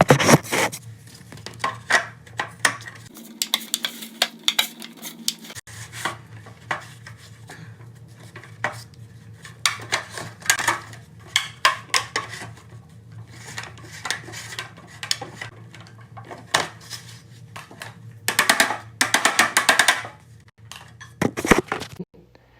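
Thin aluminium sheet being bent and pressed around a wooden board by hand: irregular metallic crinkles, clatters and taps, busiest in two spells near the middle and end.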